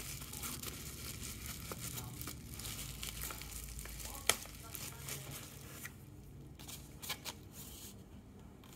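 Packaging being torn and crinkled by hand as a parcel is opened, with a sharp click about four seconds in and a few lighter clicks near the end.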